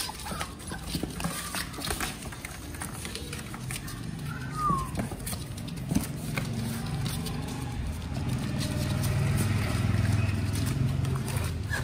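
Puppies' claws pattering and scratching on cardboard, with one short falling whine from a puppy about four and a half seconds in, and a low rumble building toward the end.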